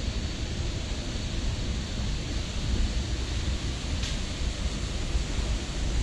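Steady rushing water noise from a waterfall and its rocky stream, with a low, gusting wind rumble on the microphone.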